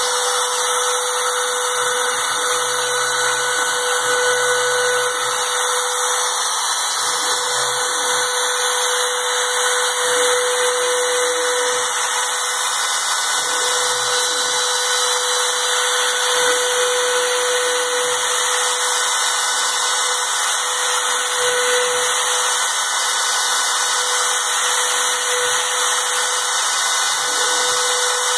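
A power tool running continuously, with a steady high hiss and a hum that swells and fades.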